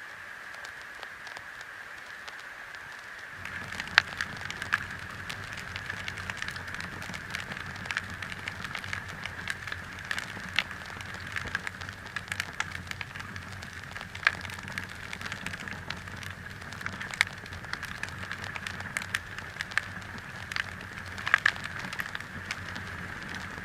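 Irregular crackling with sharp pops over a low hum, both starting about three seconds in, and a steady high-pitched hiss throughout.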